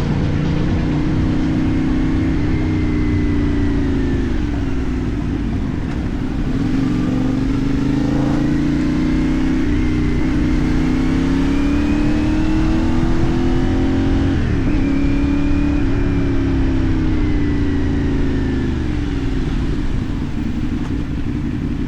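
CFMoto 450NK's parallel-twin engine heard through a LeoVince aftermarket exhaust, pulling up through the revs under load. Its pitch drops sharply at gear changes about ten and fourteen seconds in, and near the end it eases off and winds down.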